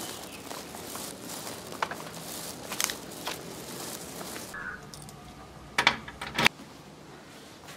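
Scattered light footsteps, then a round metal door knob on a wooden door handled, with two sharp, loud clicks of the knob and latch about two-thirds of the way through.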